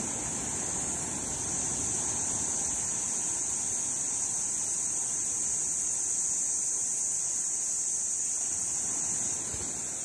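Small waves breaking and washing on a sandy beach, a steady rushing surf, with an even high-pitched hiss running over it throughout.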